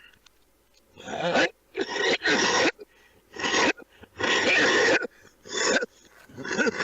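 A man's coughing fit: about seven harsh coughs in quick succession, some with a hoarse, voiced edge.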